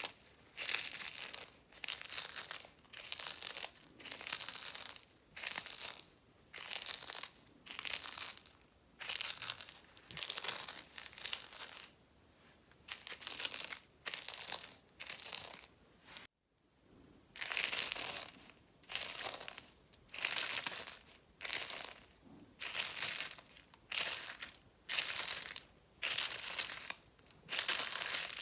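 Dried soap crunching and crumbling close up, one crisp crunch about every second in a steady run, broken by a brief gap of silence just after halfway.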